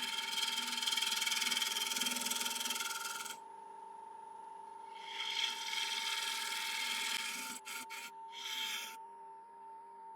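A 3/8 inch bowl gouge cutting a spinning Iroko bowl blank on a wood lathe, a hissing cut over a steady thin whine from the lathe. The cut runs for about three seconds, stops, comes back for a couple of seconds, then breaks into a few short touches near the end.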